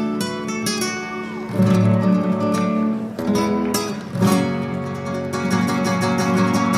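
Spanish-style acoustic guitar music with quick strummed chords.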